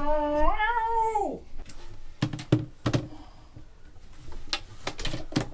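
A long pitched cry, held and then rising and breaking off about a second and a half in, followed by several scattered sharp knocks.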